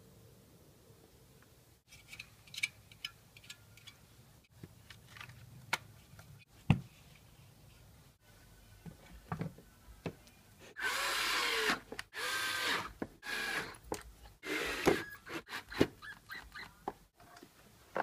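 Plastic parts of a shop vacuum knocking, clicking and scraping against each other as the lid and motor head are fitted back onto the tank by hand, with one longer, louder scrape about eleven seconds in.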